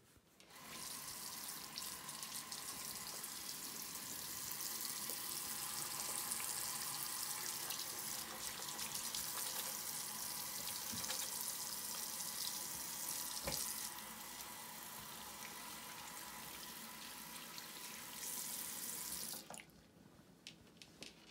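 Water running from a bathroom faucet into a sink while hands are washed under the stream. The water stops near the end.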